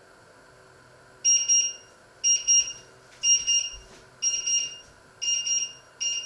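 Electronic alarm beeper sounding in short groups of high beeps, about three quick beeps per group, once a second, six groups in all, then it stops.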